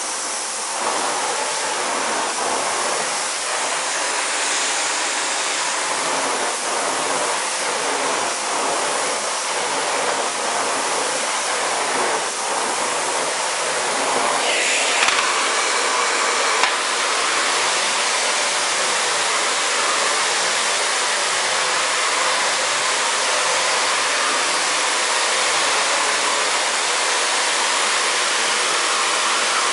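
Electrolux Ultra Silencer Green ZUSG3000 1250 W canister vacuum cleaner running, a steady rush of suction air through its floor nozzle as it is pushed over a shaggy rug and onto a wooden floor. It gets slightly louder about halfway through, with a couple of light clicks.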